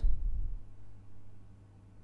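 Low background rumble with no speech: room tone that fades away over the pause.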